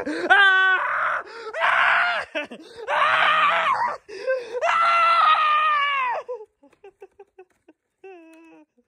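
A person's high-pitched screaming: four long shrieks in the first six seconds, then only a few faint short sounds.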